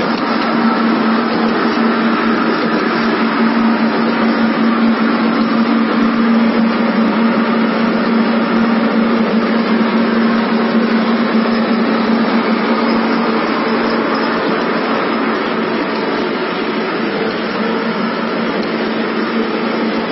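High-speed paper edge board (edge protector) machine running steadily: a constant mechanical hum with one strong low tone under a steady noisy whir.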